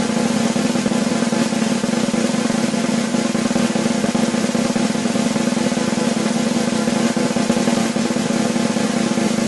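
Snare drum roll, a fast continuous buzz of strokes held at an even level with no accents or breaks.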